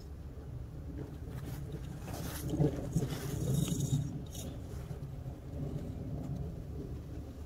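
Steady low rumble of wind on the microphone, with a sharp crack about two and a half seconds in as a driver strikes a golf ball off the tee.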